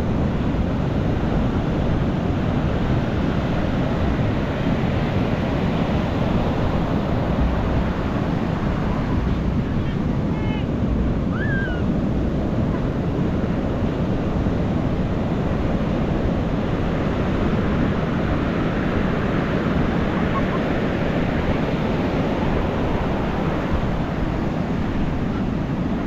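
Ocean surf breaking on a beach: a steady, continuous rush of waves.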